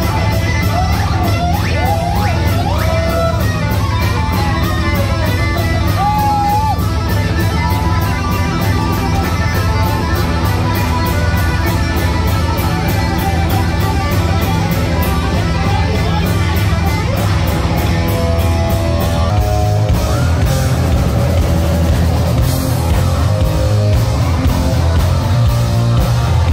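Heavy metal music: distorted electric guitar over bass and drums, with a lead line bending up and down in pitch in the first several seconds.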